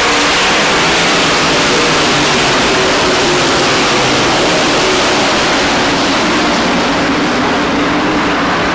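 A field of race trucks' engines running at speed around an oval track: a loud, steady, dense engine noise whose pitch drifts up and down as trucks pass.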